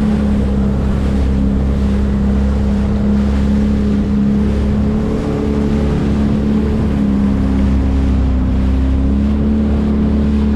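Jet ski engine running steadily at speed across open water, its note shifting slightly up and down a few times, with water rushing and wind on the microphone.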